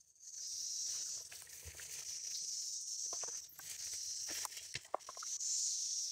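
Footsteps rustling through leafy undergrowth, with scattered snaps and clicks of twigs, under a steady high buzz of insects that swells and fades.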